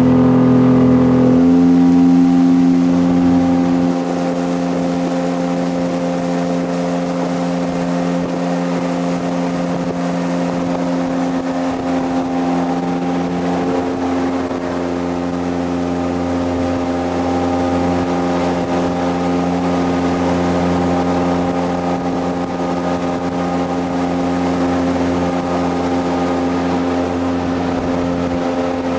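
Jet boat engine running under way, a steady pitched drone; its pitch shifts about a second and a half in, and it then settles a little quieter and holds steady.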